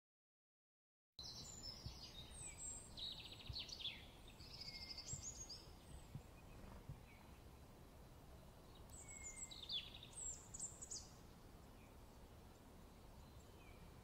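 Small songbirds chirping and twittering faintly in short quick bursts over a low outdoor background hiss, starting about a second in, with a few soft short whistles among them.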